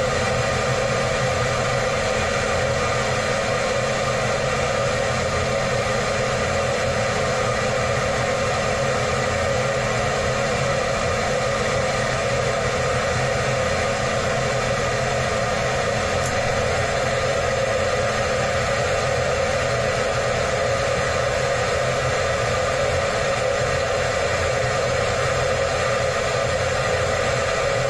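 Blower fan of a 3 kW electric heater running steadily, a constant whirring rush of air with a hum through it. The heater is on and blowing hot air.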